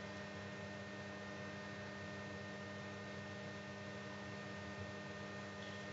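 A steady hum made of several fixed tones, with an even hiss behind it and nothing sudden standing out.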